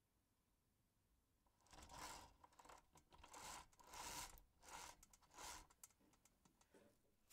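Hand-made sound effects: a run of short scratchy, rustling noises, about two a second, starting a little under two seconds in.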